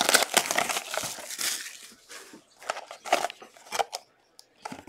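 Plastic shrink-wrap crinkling and tearing as it is stripped off a trading-card box, then the cardboard box being pried open. The rustle is dense for the first couple of seconds, then thins to short crackles and clicks.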